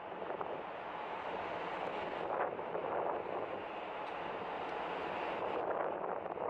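Wind rushing over the microphone on the open deck of a ferry under way: a steady noisy rush with a faint low hum underneath.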